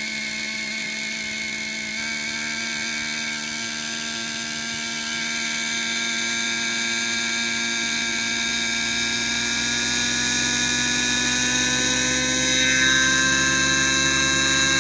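Align T-Rex 600 nitro RC helicopter's glow engine and rotor running under the AR7200BX governor: a steady engine whine that slowly rises in pitch and grows louder through the second half as the head spools up and the model lifts off.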